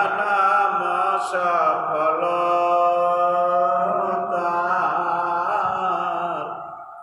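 A man's voice chanting a slow, sung melody, holding long notes. The voice dips briefly shortly before the end, then goes on.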